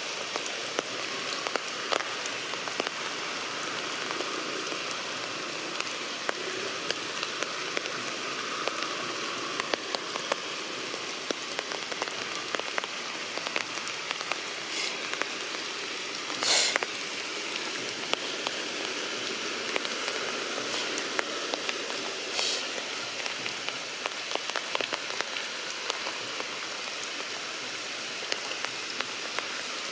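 Heavy rain falling steadily, pattering on leaves with many small drop ticks. A few louder sharp hits stand out around the middle, the loudest about halfway through.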